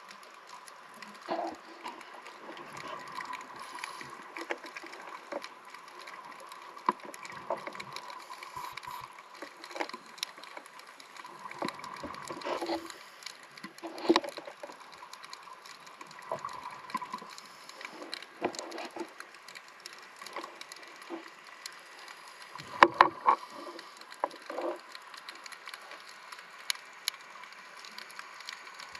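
Underwater sound picked up on a scuba diver's camera: a steady faint hum under many scattered sharp clicks and crackles. Louder bubbly bursts come about halfway through and again about three quarters of the way in, like a diver's exhaled regulator bubbles.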